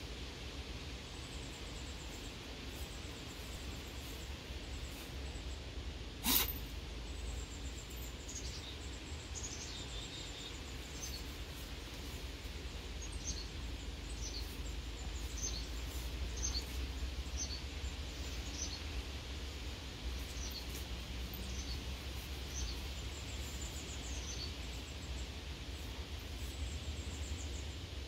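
Outdoor ambience: small birds chirping in short, repeated high calls over steady low background noise, with a single sharp click about six seconds in.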